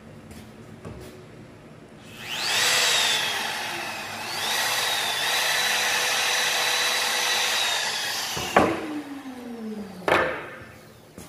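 Handheld wood trimmer (compact router) switched on about two seconds in, spinning up with a rising whine, then running at high speed as it rounds over the edge of a board. It is switched off near the end and winds down with a falling tone, followed by a sharp knock.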